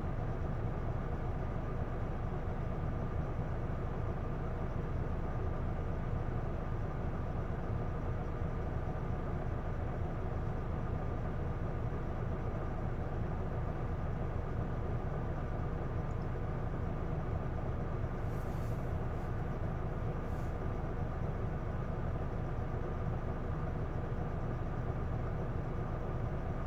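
Isuzu Erga PDG-LV234L2 city bus heard from inside the cabin: a steady diesel engine and drivetrain drone with a thin steady tone above it. This bus is known for an abnormal noise whose cause is unexplained.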